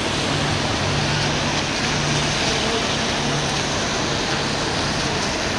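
Wet city-street traffic: a steady hiss of tyres on rain-soaked pavement, with a transit bus engine's low hum coming and going underneath.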